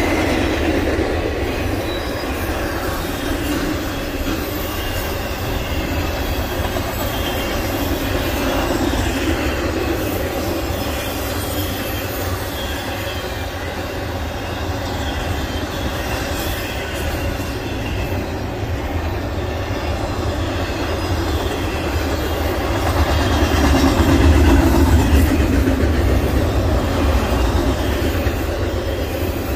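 Intermodal freight train's container well cars rolling past on the rails: a steady rumble and clatter of steel wheels on track. It grows louder for a few seconds about three-quarters of the way through.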